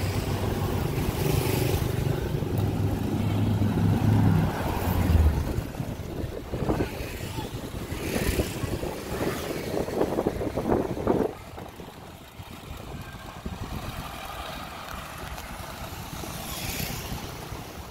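Street traffic of motorbikes and cars passing close by, with a steady engine hum for the first few seconds that stops about five seconds in. The traffic noise drops to a quieter street background at about eleven seconds.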